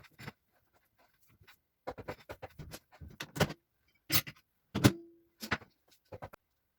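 Kitchen utensils and cookware knocking and clattering in a run of sharp, irregular knocks. About five seconds in, a hard knock on metal rings briefly.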